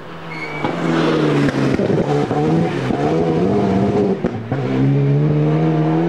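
Rally car engine approaching hard, growing louder over the first second and then running at high revs, with a brief dip about four seconds in before it pulls steadily again.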